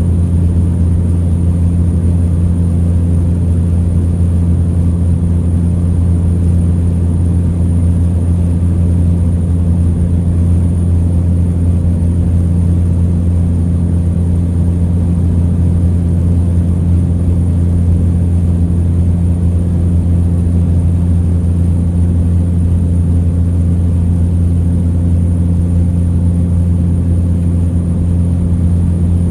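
Cessna Caravan's single PT6A turboprop engine and propeller running at a steady setting: a loud, even, low drone.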